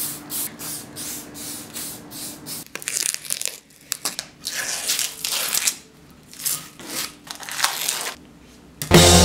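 Aerosol spray-paint can hissing, first in a quick run of short bursts, then in several longer sprays of up to a second or so.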